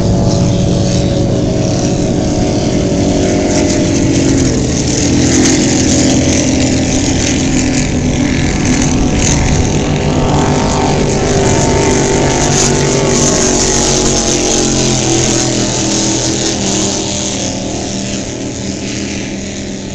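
Offshore racing powerboats' engines running flat out, several engines droning together over a hiss of wind and water. The pitch shifts about four to five seconds in as boats pass, and the sound eases off a little near the end.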